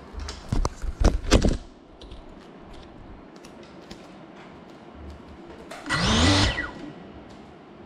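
FPV drone's brushless motors spinning up in short bursts: quick blips with a few knocks about a second in, then a louder rev of about a second with a rising whine near the end.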